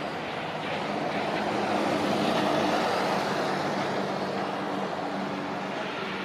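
Road traffic on a city street: a passing vehicle's noise swells to its loudest about two to three seconds in and then eases off, over a faint steady low engine hum.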